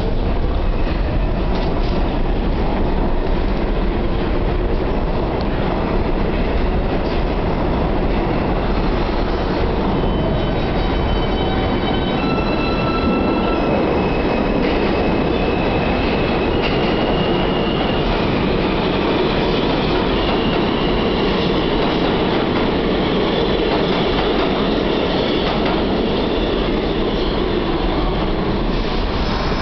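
New York subway trains running: an R160A train moving out on the far track, then an R46 train pulling in alongside, with a steady rumble and clatter of wheels on rail. Several high whining tones come and go in the middle.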